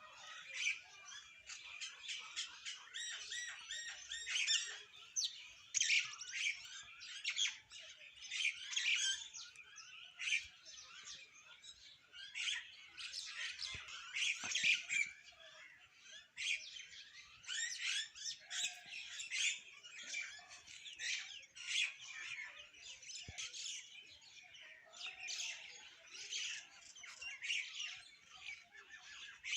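A group of small birds chirping and chattering without pause, many short high calls overlapping.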